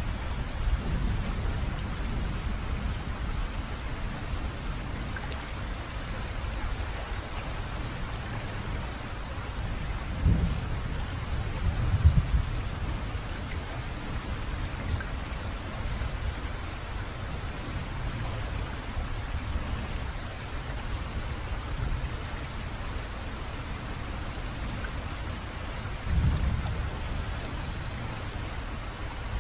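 Steady rain with low rolls of thunder: one about ten seconds in, a louder one about twelve seconds in, and another near the end.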